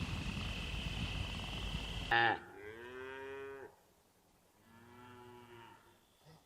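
A cow mooing twice, each call about a second long, the second one quieter. Before the moos there are about two seconds of steady hissing background noise that cuts off suddenly.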